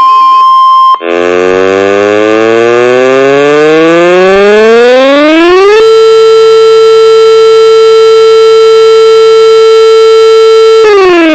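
A steady tone near 1 kHz sounds for about a second. Then a civil defense siren winds up in a long rising wail, holds one pitch for about five seconds, and starts to wind down near the end.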